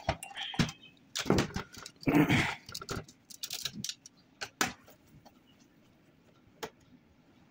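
Scattered clicks and clinks of plastic and metal printer parts being handled during disassembly of a Canon LBP6030 laser printer, with a couple of short voice-like sounds in the first three seconds.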